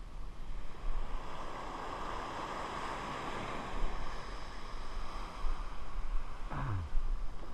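Surf washing up the beach, one wave's wash swelling about a second in and easing off, with wind buffeting the microphone. A brief low falling tone near the end.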